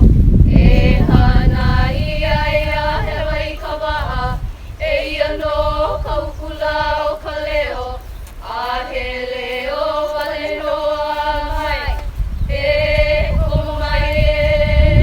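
Several voices chanting a Hawaiian hula chant in unison, holding long wavering notes in phrases of about four seconds each, with short breaks between. A low rumble runs under the first few seconds and again near the end.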